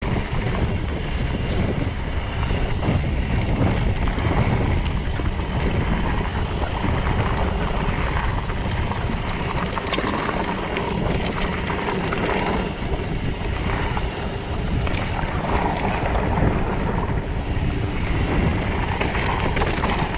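Wind rushing over the microphone of a rigid mountain bike's action camera as it rolls down dirt singletrack, with tyre noise and scattered clicks and rattles from the bike over bumps.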